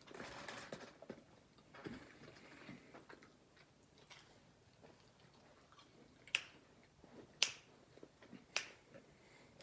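Close-miked mukbang eating: faint chewing and handling of food, with three sharp crunchy clicks in the second half.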